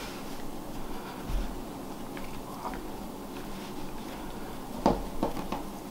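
Faint, soft handling noise of hands rolling up a sheet of apple-filled bread dough on a floured wooden board, with a soft bump about a second in and a few more near the end.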